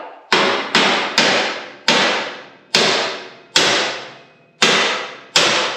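About eight hammer blows on the race car's steel front end at the coil spring, each one ringing and dying away. The tapping shakes the compressed front coil spring so it settles into the position it naturally wants to take.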